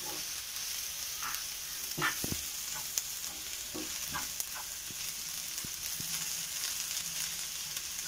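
Onions, green chillies and curry leaves sizzling in oil in a nonstick frying pan while a wooden spatula stirs them, with scattered scrapes and taps of the spatula against the pan over a steady hiss.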